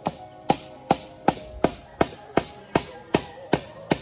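Evenly paced blows of a hand tool on wood, about three a second, each a sharp crack with a brief ring.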